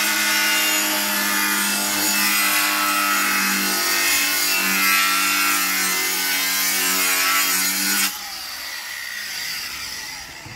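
Cordless angle grinder cutting into thin cement board, a loud steady whine. About eight seconds in the cut ends and the grinder's whir drops suddenly and fades as the disc spins down.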